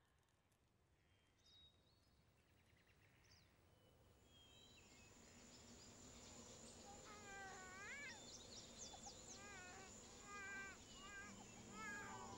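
Near silence fading up into faint outdoor ambience: a steady high insect-like tone, then from about seven seconds in a run of short chirping animal calls that repeat about twice a second.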